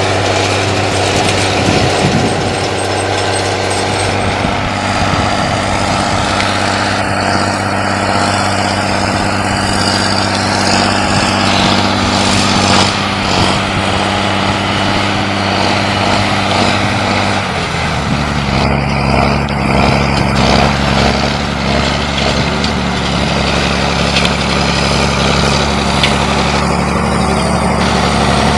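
Rába 245 articulated tractor's diesel engine running steadily under load while pulling a seedbed cultivator. Its tone changes to a different pitch about two-thirds of the way through.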